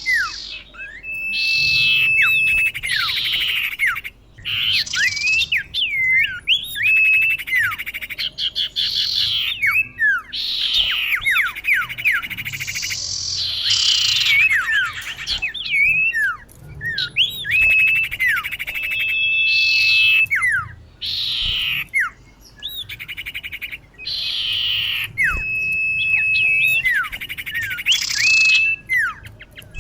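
Female common iora calling: repeated phrases of quick up-and-down whistled chirps, buzzy bursts and a held level whistle, recurring every few seconds. It is the female's call to males, used as a lure sound for trapping.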